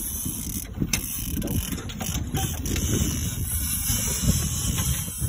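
Fishing reel being cranked, its gears and ratchet clicking irregularly while a hooked fish is reeled in, over a steady low rumble.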